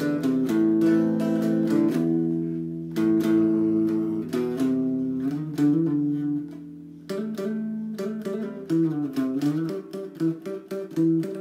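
Mosrite electric guitar played solo: picked chords and single notes left to ring, with a wavering bend in pitch about nine seconds in.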